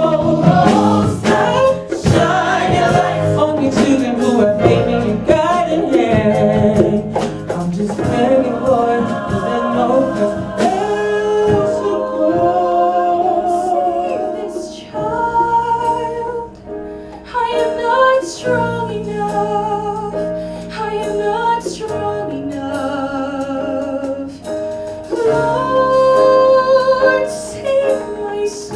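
Gospel-style choir singing with soloists, held and ornamented notes with vibrato and no clear words. Sustained low notes come in about halfway through.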